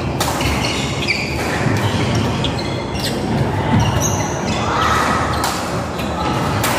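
Badminton play in a large hall: sharp racket hits on the shuttlecock and short squeaks of court shoes on the floor, with the hall's echo.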